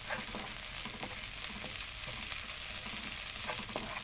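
Chili paste with chopped garlic, shallot and ginger sizzling in hot oil in a nonstick wok, with a steady hiss and repeated scrapes of a spatula stirring it through the pan.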